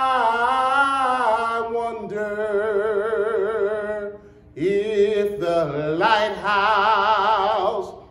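A man singing a slow gospel song unaccompanied, holding long notes with a wide vibrato in two drawn-out phrases with a short breath between them.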